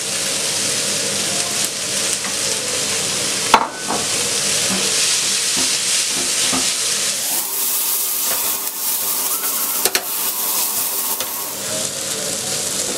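Chopped peppers, onion and tomato sizzling in oil in a frying pan while a spatula stirs them, a steady hiss throughout. There is a sharp knock about three and a half seconds in and another near ten seconds.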